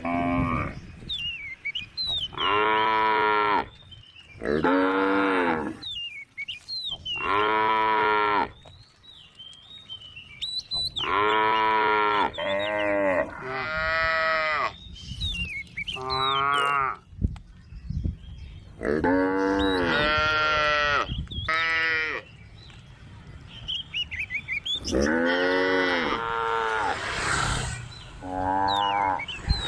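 Several cows mooing one after another, a dozen or so calls of about a second each, each rising then falling in pitch, sometimes overlapping. Faint bird chirps come in between the calls.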